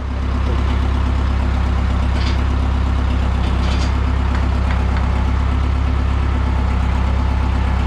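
A large engine idling steadily with an even low pulse, with a few faint light clinks about two and four seconds in.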